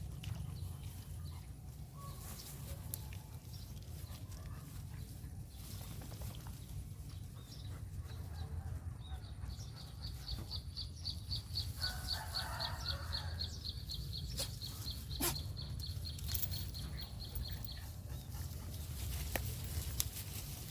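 Outdoor ambience under a steady low rumble. A rapid, high-pitched trill of evenly repeated pulses starts about nine seconds in and lasts around eight seconds, with an animal call about twelve seconds in and a sharp click near fifteen seconds.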